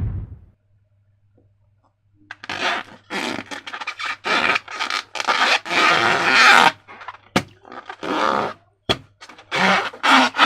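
Slime being squished and worked by hand: a run of irregular short squishing sounds starting about two seconds in, with two sharp snaps among them.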